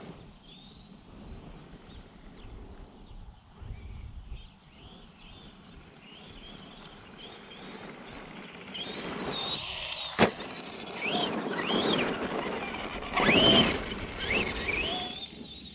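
Electric RC truck driving fast over gravel: its motor whines up and down with the throttle over the crunch of the tyres, growing louder from about halfway in and loudest as it passes close near the end. A single sharp knock comes about ten seconds in.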